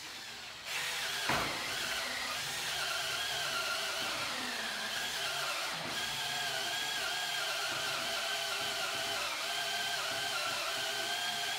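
Cordless drill boring a blind hole into a thick high-density polyethylene board with a large bit, its motor running with a steady whine that wavers slightly under load. It starts under a second in, with a short knock just after.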